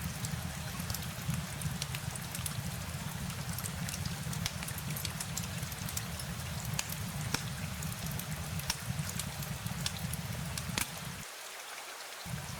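Steady rain with scattered sharp drop ticks over a low rumble. The rumble cuts out for about a second near the end.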